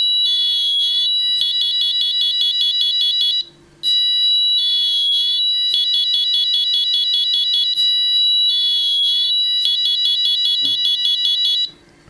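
Piezo buzzer driven by an Arduino Uno sounding a shrill, high-pitched electronic siren alarm. It cycles through a steady tone, a wavering wail and a fast stuttering chirp pattern, breaks off briefly about three and a half seconds in, then starts again and stops just before the end.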